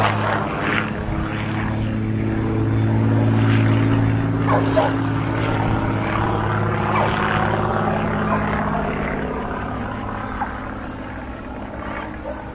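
Single-engine propeller plane's engine running overhead in a steady drone, fading over the last few seconds as the plane draws away. Crickets chirp in a quick, even pulse throughout.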